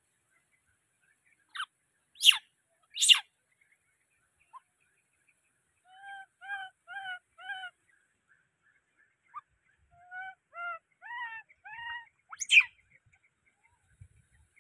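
Baby macaque crying in distress: two loud, shrill screams a few seconds in, then a run of short squeaky cries, and one more scream near the end.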